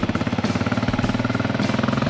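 A vehicle engine running close by, with a fast, even exhaust beat at a steady pitch.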